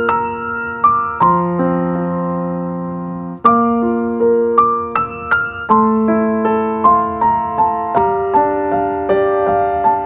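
Background piano music: a slow melody of single struck notes over held chords, each note ringing on and fading.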